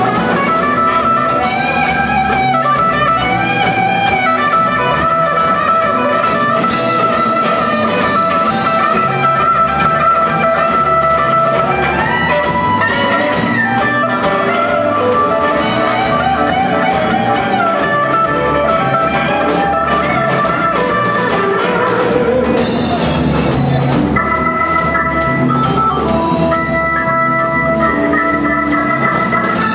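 A live rock band plays, with an electric guitar soloing in sustained, bending notes over drum kit and bass. In the last few seconds a Hammond organ comes forward, holding steady chords.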